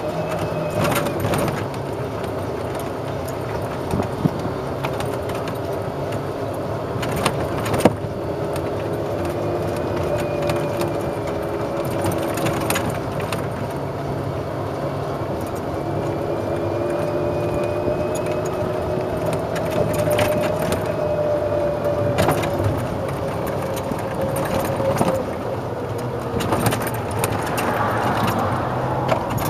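1993 Club Car DS golf cart driving along a paved path: a steady running hum whose tones drift gently up and down with speed, with the cart's body and frame rattling and giving a few sharp knocks over bumps, the loudest about eight seconds in.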